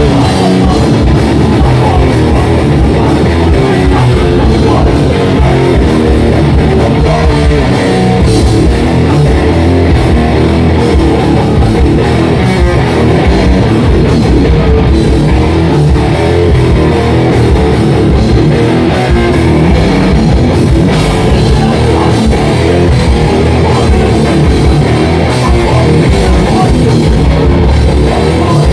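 Hardcore punk band playing live: electric guitars and a drum kit in a loud, dense, unbroken wall of sound.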